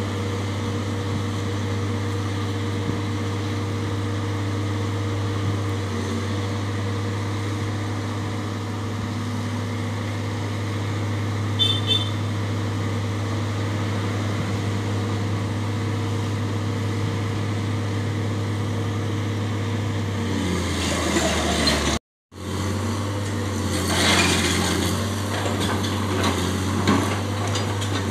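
Excavator's diesel engine running steadily, then from about twenty seconds in working harder and rattling, its note dropping, as the machine labours to climb a slope.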